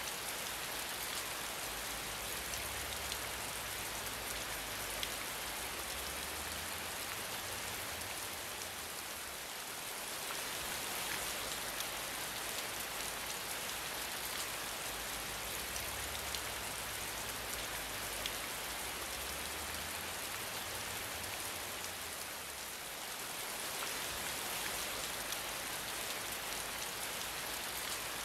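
Steady rain falling, an even dense hiss of drops with scattered individual drip ticks, easing very slightly twice for a moment.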